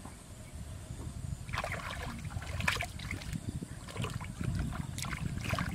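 Hands groping through shallow muddy water for fish, with irregular splashes and sloshing over a steady low rumble.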